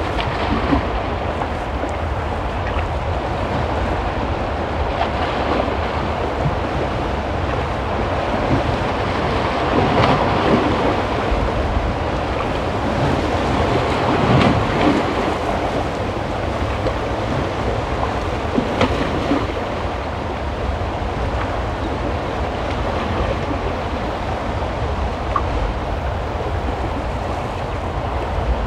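Choppy inlet water washing and splashing over shoreline rocks, with wind buffeting the microphone as a steady low rumble. The wash swells louder around ten and again around fifteen seconds in.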